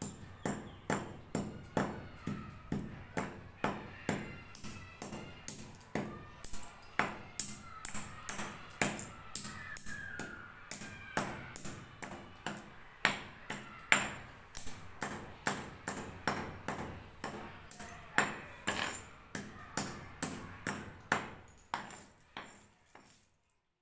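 Hammer repeatedly striking a plastic computer mouse, sharp cracking blows at about two a second, fading away near the end.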